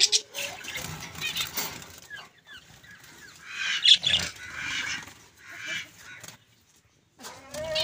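Chickens clucking and finches fluttering in a wire cage, in scattered irregular bursts, with a brief near-silent gap about six and a half seconds in.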